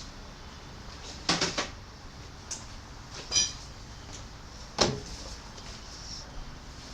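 Tools and sheet metal being handled on a workbench: a few separate knocks, a short ringing metallic clink in the middle, and a sharp knock a little before the end.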